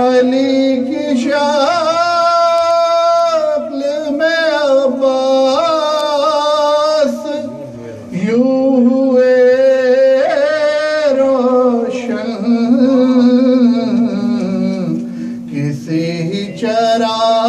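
A man singing devotional verse in a melismatic, ornamented style, with a steady held tone underneath, and a brief pause about eight seconds in.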